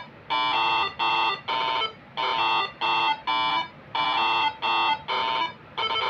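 Moreno MS7 musical air horn (telolet) module playing a tune: a melody of short, buzzy horn-like notes, about three a second, in phrases with brief pauses between them.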